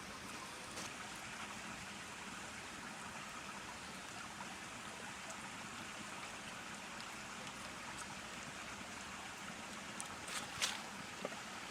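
Faint, steady rush of flowing water, with a few small clicks and knocks near the end.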